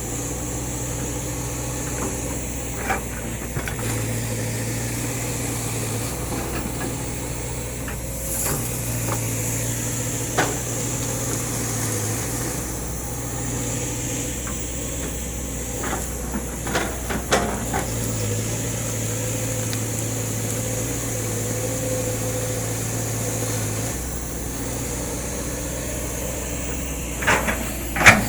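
Kobelco excavator's diesel engine running steadily, its low note shifting up and down every few seconds, with scattered clanks and knocks, the loudest just before the end.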